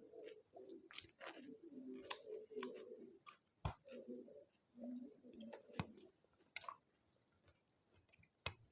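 Close-up eating of pani puri: wet chewing with several sharp crunches of the crisp fried puri shells, going quieter for a stretch near the end.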